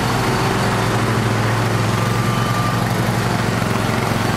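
Riding lawn tractor engine running steadily at an even speed.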